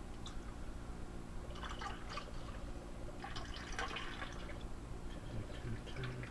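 Home-brewed ale being poured vigorously from a bottle into a glass, the liquid sounds coming in two spells, about one and a half seconds in and again a second later.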